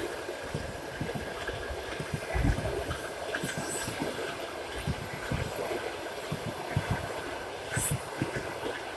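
Passenger train coaches rolling past at speed, their wheels clattering irregularly over the rail joints.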